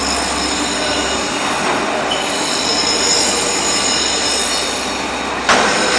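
Titan SC 33 vertical turret lathe running: a steady mechanical drone with several high whining tones, and a sharp clunk about five and a half seconds in.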